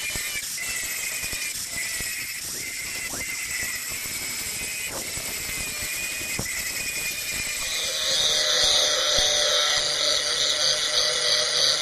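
Angle grinder with an abrasive disc grinding the steel of an old saw blade down to a knife outline: a steady whine that dips briefly every second or so as the disc bites. About eight seconds in, guitar music comes in louder over it.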